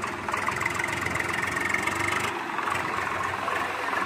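Swaraj 735 FE tractor's diesel engine working hard under load, pulling a loaded trailer through sand, its exhaust beat steady and even.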